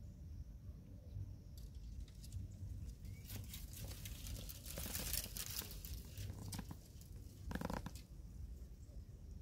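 Leaves and thin branches of a sapling rustling and crackling as a young macaque climbs through it and shakes it, loudest about halfway through. A brief pitched squeak comes near the end.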